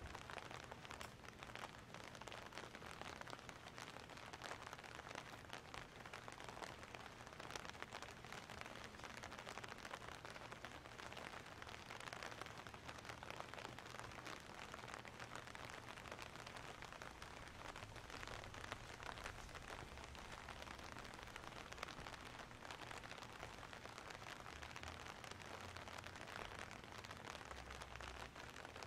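Quiet outdoor ambience: a faint, steady hiss with light crackling over a low hum, and no music.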